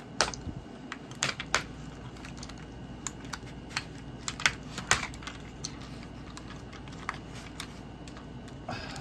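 Sharp, irregular clicks and taps of hard plastic as a Transformers figure is worked free of its box packaging.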